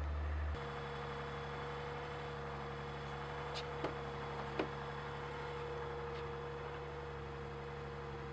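Steady machine hum holding several fixed tones, which shifts abruptly about half a second in, with a few light clicks and taps.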